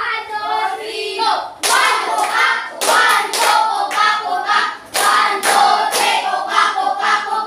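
A group of voices singing or chanting together, with sharp hand claps at intervals of about half a second to a second.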